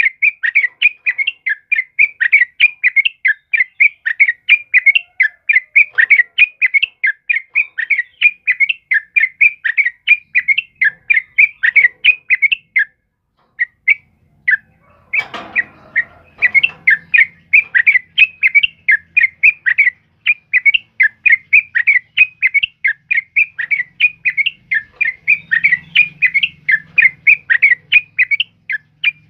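Yellow-vented bulbul (trucukan) calling persistently, a fast run of short, sharp chirps several times a second, broken by a short pause about halfway. Just after the pause comes a brief rustling noise.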